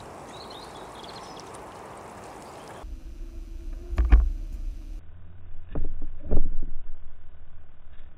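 Steady outdoor water-and-air noise with a few faint chirps, then, about three seconds in, muffled underwater sound: a low rumble with three sharp knocks, the loudest about four seconds in, as trout strike at small hookless crankbait lures.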